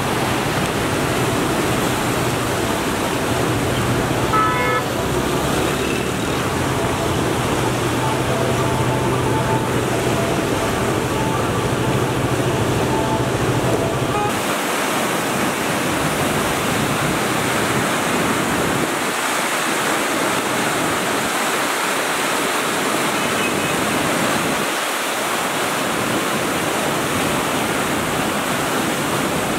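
Muddy floodwater of the Sutlej rushing and churning through and past a barrage: a loud, steady rush. A low steady hum lies under it for about the first half, and the rush changes abruptly about halfway through.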